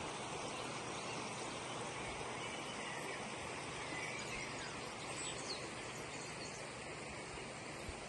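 Steady rush of a shallow, rocky stream running over stones, with a few faint bird chirps.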